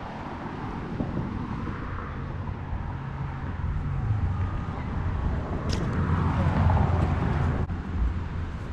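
A heavy engine running steadily with a low hum, getting louder a little past the middle.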